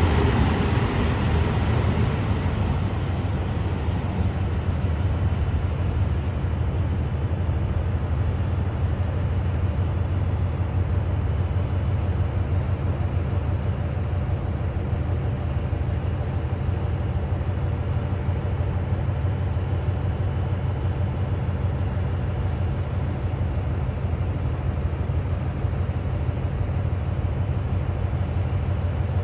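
KiHa 183 series 1000 diesel railcar train pulling away. Its higher-pitched noise fades over the first couple of seconds, leaving a steady low rumble.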